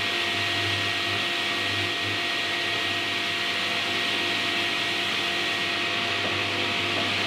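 Sliding panel saw and its dust extraction running steadily with the blade spinning free, not cutting: an even whirring hiss with a fixed whine.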